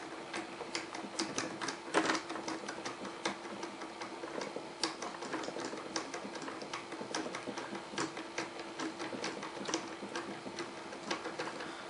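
Irregular run of small clicks and ticks from hand assembly: a small screwdriver turning screws into the plastic plow mount of an RC snowcat model.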